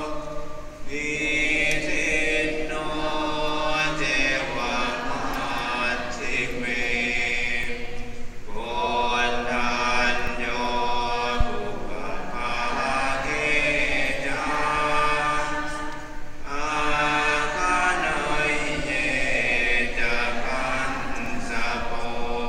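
Buddhist chanting by a group of male voices in unison, in long held phrases of about eight seconds, each starting again after a short pause.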